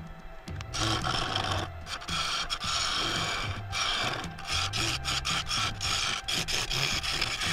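A turning tool cutting the inside of a spinning claret ash bowl on a wood lathe: a steady scraping hiss broken by many brief pauses.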